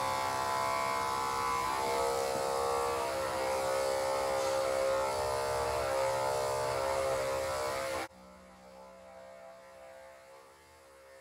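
Electric dog grooming clippers running with a steady buzzing hum while shaving a springer spaniel's coat, then switched off abruptly about eight seconds in.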